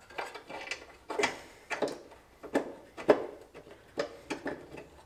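Irregular sharp metallic clicks and clinks, about two a second, of hand tools and bolts as bolts are put in and started by hand.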